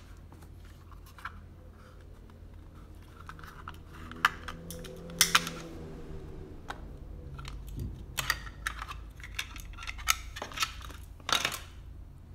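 Sharp plastic clicks and cracks as the snap-fit plastic case of an LED panel driver is pried open and its circuit board pulled out, the loudest snaps about four to five seconds in and again near the end.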